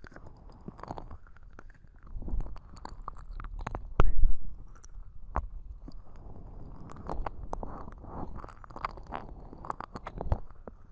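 Slow ear licking into a binaural microphone: many wet tongue and lip clicks and smacks over low rumbles, with one louder burst about four seconds in.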